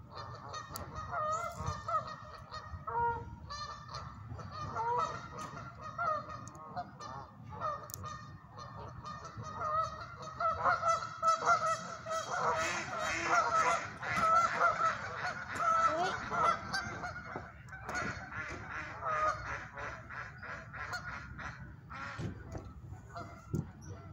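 A flock of geese honking on the pond, many overlapping calls, busiest about halfway through. A few sharp clicks near the end.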